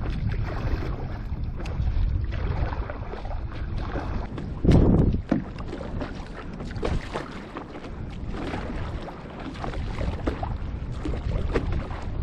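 Water splashing and sloshing against a board on the sea, with wind buffeting the GoPro microphone; one louder splash comes about five seconds in.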